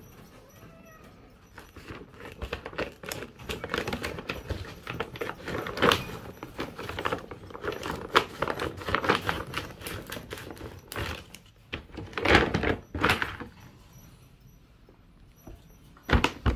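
Scissors cutting across the top of a large plastic cat-food sack: crinkling and rustling of the stiff plastic with the clicks of the blades, and a sharp loud crackle near the end as the bag is pulled open.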